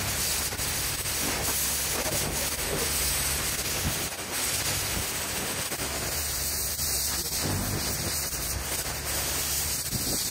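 Pressure-washer lance jet blasting water onto grimy paving slabs: a steady, loud hiss of spray hitting stone, with a low steady hum underneath.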